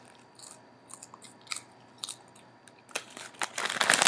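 Someone chewing crunchy baked potato chips close to the microphone. There are scattered crisp crunches, sparse at first, then a louder cluster of them near the end.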